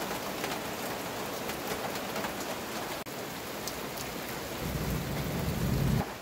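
Rain falling steadily and dripping off the edge of a roof. A low rumble swells near the end and stops abruptly.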